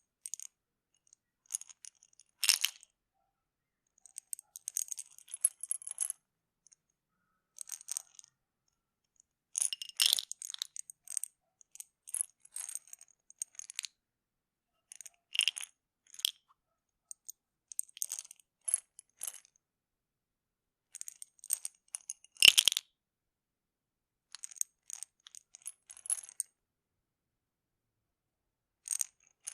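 Plastic pill bottle handled over and over: the cap clicking on and off and the pills rattling inside, in short bursts of sharp clicks and rattles with brief silent gaps between them. Three louder snaps stand out among them.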